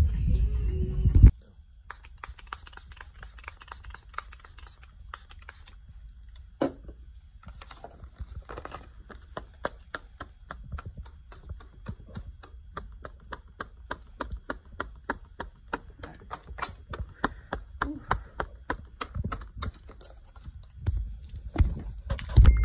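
A long run of light, sharp clicks or taps, about three to four a second, over a faint low hum.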